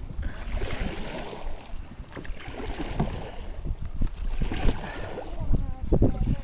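Water splashing and sloshing around a fishing kayak in uneven bursts, with some wind on the microphone.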